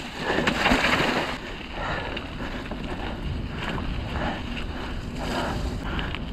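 Wind rushing over the microphone with the rolling noise of a mountain bike on a dirt trail, louder for the first second or so and then steadier.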